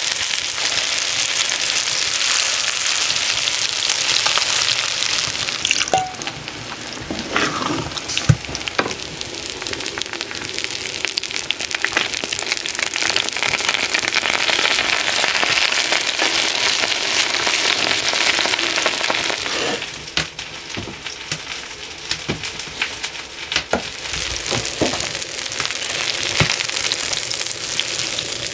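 Food sizzling as it fries, with scattered sharp clicks and knocks. The sizzling dies down briefly twice, about six seconds in and again around twenty seconds in.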